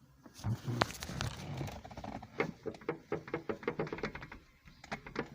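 Lexus sunroof mechanism making rapid, even clicking or knocking, about six to seven clicks a second, with a short break near the end: the bad noise of a faulty sunroof drive.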